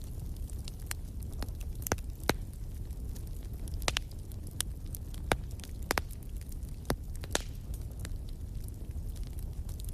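Wood fire in a fireplace crackling: irregular sharp pops, roughly one a second, over a steady low rumble of the flames.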